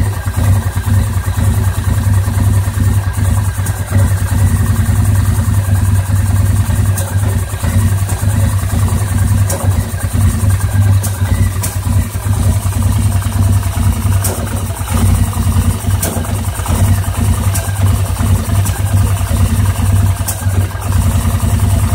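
2009 Polaris Sportsman 850 XP ATV's twin-cylinder engine idling rough and uneven, with sharp pops every one to three seconds. It is burping, backfiring and missing, which the owner takes for a miss.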